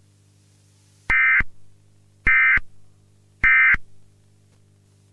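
Emergency Alert System SAME data tones: three short, identical buzzing bursts about a second apart, the end-of-message code that closes an EAS alert. A faint steady low hum runs beneath them.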